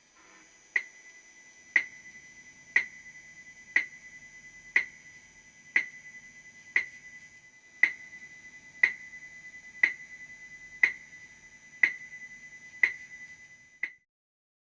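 Interference from an electronic watch picked up by the pickups of an ES-335-style electric guitar: a sharp tick once a second over a steady high whine. It stops abruptly near the end.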